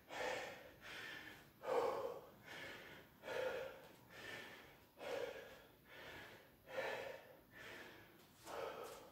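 A man breathing hard, catching his breath after a burst of exercise: a loud, rhythmic exhale about once a second.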